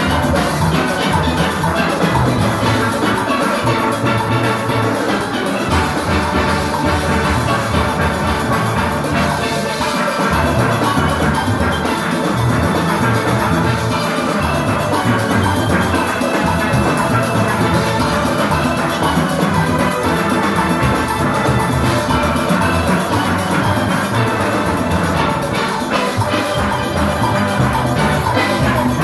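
A full steel orchestra playing live: many steel pans together, from small high-pitched pans to the large barrel-sized bass pans, in a continuous, evenly loud performance.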